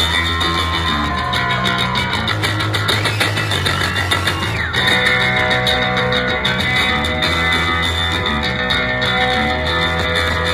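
Live ska-punk band playing a stretch without vocals: electric guitar and bass guitar over a steady beat.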